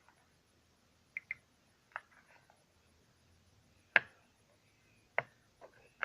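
A handful of short, sharp taps and knocks from containers and utensils being handled while borax activator is added to a slime mix; the loudest knock comes about four seconds in.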